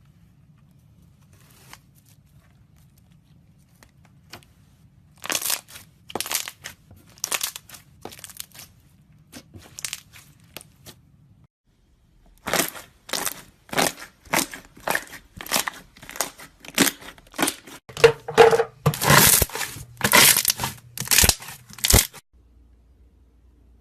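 Slime being squeezed and worked by hand, making a run of short, sharp squishing sounds. They come about one a second at first, then faster and louder after a brief pause near the middle, and stop shortly before the end.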